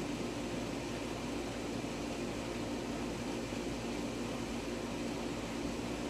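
Steady droning noise that does not change, with no distinct events.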